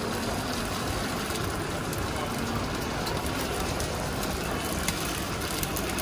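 Steady hiss of seafood frying in a hot pan over a gas burner, with a light click of the metal spatula about five seconds in.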